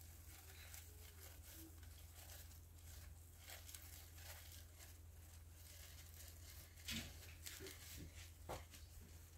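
Faint rustling and light scratching of small hamsters scurrying over wood-shaving bedding and a wooden stick bridge, with a few sharper clicks in the second half, over a low steady hum.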